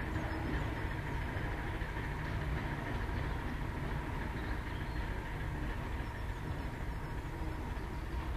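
Class 73 electro-diesel locomotive running on its diesel engine while moving slowly, a steady low rumble with a faint steady whine above it.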